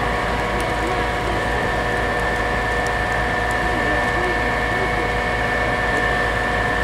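Fire-service aerial platform truck's diesel engine running steadily while parked, with a steady high whine held at an even pitch.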